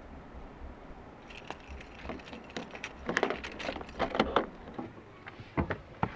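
Keys jingling and small clicks and rustles as the driver's door of a Ford Focus is unlatched by its handle and swung open, with a sharp click near the end.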